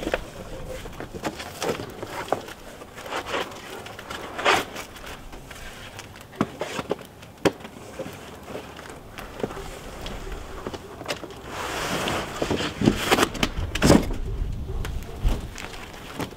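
Cardboard shipping box and foam packing being handled as a roof panel is worked out of the box: irregular rustling, scraping and knocks, busiest and loudest a few seconds before the end.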